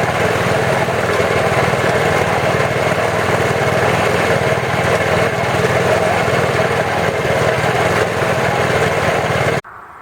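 Honda HS828 snowblower's single-cylinder engine running steadily at a constant speed, cutting off abruptly near the end.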